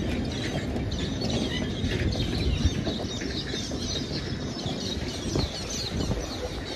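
Loaded narrow-gauge sugarcane bins rolling slowly past, with a steady rumble and knocking of wheels and couplings and one louder clank about two and a half seconds in. Birds chirp over the top.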